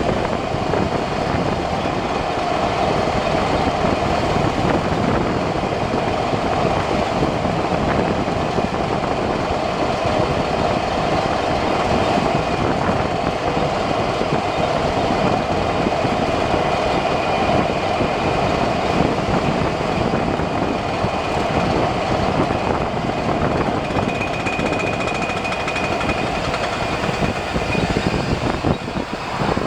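2001 Chevy Silverado driving at speed: steady road and wind noise with a constant drone and a thin whine from the front driveline, the whine coming through more clearly for a few seconds about 24 seconds in. The noise comes from a failing front driveshaft between the transfer case and the front differential.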